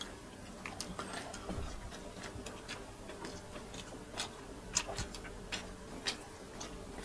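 Eating sounds: faint, irregular clicks and smacks of mouths chewing grilled chicken and rice, with one sharper click near the middle.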